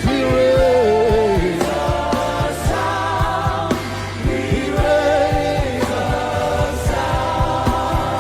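Many voices singing a gospel worship song in long, held notes over live band accompaniment, with a steady bass and regular drum hits.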